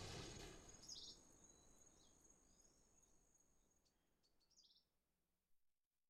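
Jungle ambience fading out: the tail of a loud, low rumble dies away while a thin, steady high tone holds until about four seconds in. Two short, high bird chirps sound, one about a second in and one near the end.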